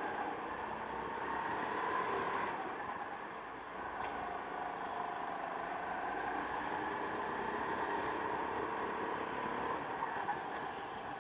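Go-kart engine heard from onboard the kart: its revs climb, drop back for a moment about three seconds in, then rise again and hold steady under throttle.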